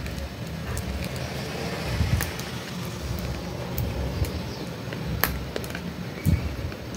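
Steady low background rumble with scattered light clicks and a louder knock near the end.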